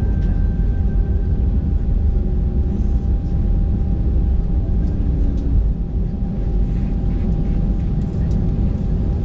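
Cabin noise inside a Lauda Europe Airbus A320: a steady, loud low rumble from the engines and airframe, with a thin steady tone running through it.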